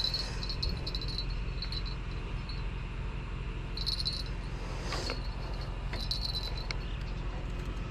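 Insects trilling in short high bursts that come and go every second or two, over a steady low hum.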